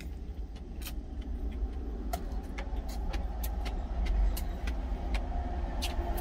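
Truck engine idling in the cab, a steady low rumble growing a little louder toward the end, kept running after high-speed driving because the engine is hot. Scattered small clicks and taps over it.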